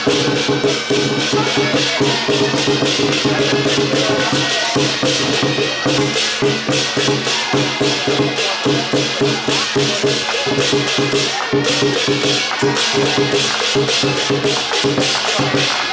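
Lion-dance percussion playing: a large drum and crashing cymbals beat out a fast, driving rhythm of dense, evenly repeated strokes. A steady low drone sounds underneath.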